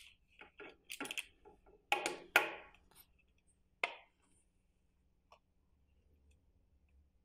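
Clicks and knocks of a plastic bike fender, its bracket and a hex key being handled and set down on a tabletop. A quick run of them comes in the first few seconds, loudest about two seconds in, followed by near quiet with one small click.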